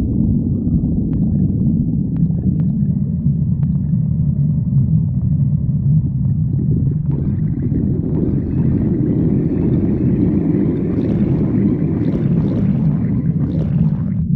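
Stomach growling: a continuous low rumble, joined about halfway through by higher gurgling that drops away just before the end.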